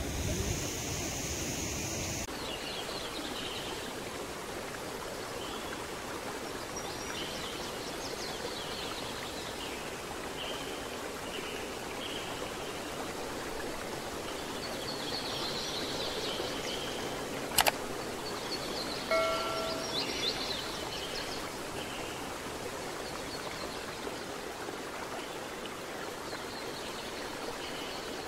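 River water flowing steadily, with scattered faint high chirps. About two-thirds of the way through there is one sharp click, and soon after it a short ringing tone.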